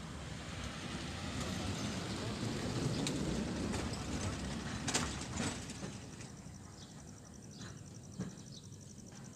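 Wind buffeting the microphone: a low rumbling gust that builds over the first few seconds and fades away after about six seconds, with a couple of sharp clicks around the middle. A faint, fast, high ticking runs through the last few seconds.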